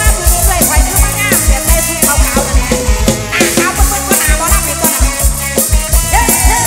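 Mor lam sing band music played live: a fast, even kick-drum beat with percussion and a wavering lead melody over it.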